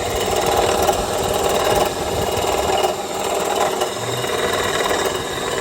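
Failing AC compressor on a 2007 Honda CR-V's running engine, making a loud, fast, steady rattling grind. The compressor is coming apart inside and moves no refrigerant.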